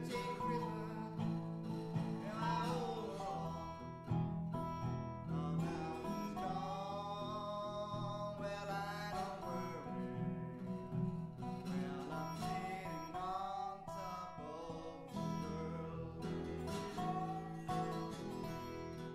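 Acoustic bluegrass-blues music: plucked guitar accompaniment under a melody line that slides and wavers in pitch.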